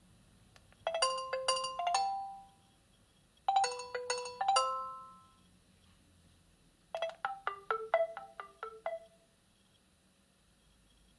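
Nokia 8000 4G playing ringtones: two short phrases of ringing pitched notes that fade out, then a quicker run of short notes about seven seconds in.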